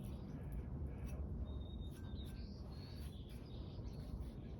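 Quiet outdoor background: a steady low rumble with small birds chirping faintly a few times, and a few faint clicks.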